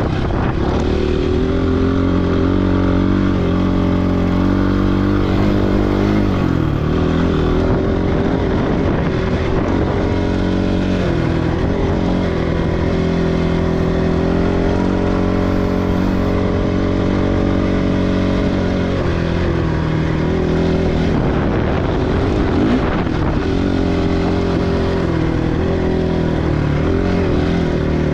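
Dirt bike engine running under way, its pitch rising and falling several times as the throttle and gears change.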